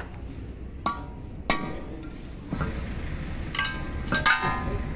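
Metal tools and parts clinking against each other and against a brake rotor and wheel hub, each strike ringing briefly. There are single clinks about one and one and a half seconds in, and a quick run of clinks from about three and a half to four and a half seconds.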